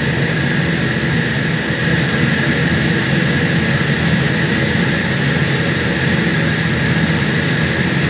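A 1300-ton centrifugal chiller compressor running while surging, a loud, steady machine noise with a deep rumble under a constant high whine.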